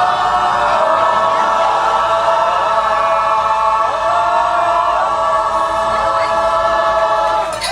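A pop choir singing long, held chords of many voices, with only small shifts in pitch. The singing stops just before the end.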